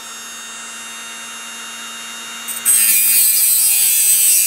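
Dremel rotary tool with a thin cutoff wheel running with a steady high whine. About two-thirds of the way in the wheel bites into the brass eyelet and a loud, harsh grinding hiss joins the whine as it cuts a slot across the eyelet.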